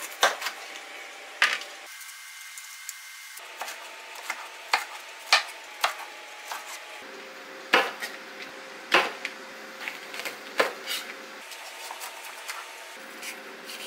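Chef's knife chopping a bell pepper and a green chili pepper on a plastic cutting board: irregular sharp knocks of the blade striking the board, roughly one every second or so.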